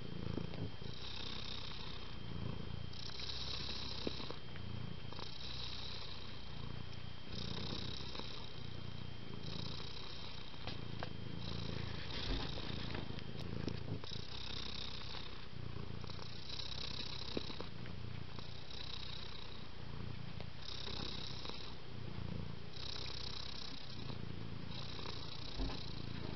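A domestic cat purring steadily, the purr rising and falling in an even rhythm of breaths in and out about every two seconds.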